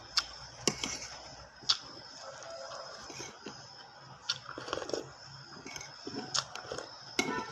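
Eating sounds: sharp crunchy bites every second or two, with chewing between them, over a faint steady high whine.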